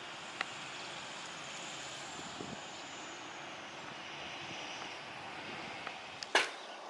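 Jet airliner engine noise at a distance: a steady rush with a faint high whine that sinks slightly in pitch. A sharp click sounds shortly before the end.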